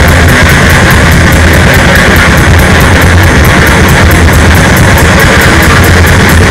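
Loud, heavily distorted noisy rock music: a dense wall of distorted guitar or noise over a fast, even drum beat of about five hits a second.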